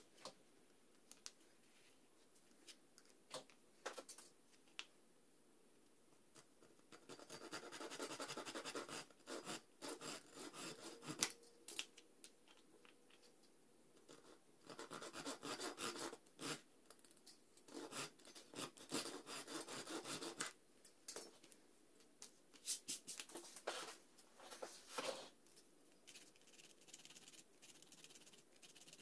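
A few light clicks of small wooden parts being handled and set down, then several bouts of scraping as a steel blade shaves the edges of a small scroll-sawn wooden part. Fainter rubbing of sandpaper on the wood comes near the end.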